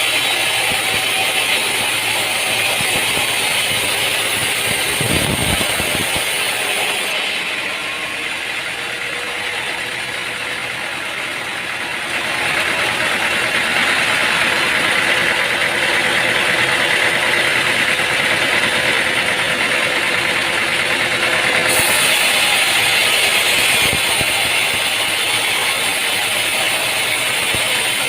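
Steady machinery noise, engine-like, that changes character abruptly about seven seconds in and again near twenty-two seconds, with a low thud about five seconds in.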